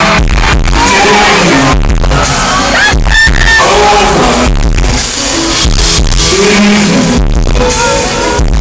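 Loud amplified live pop music with a singer, picked up from among the audience at a concert, heavy in the bass.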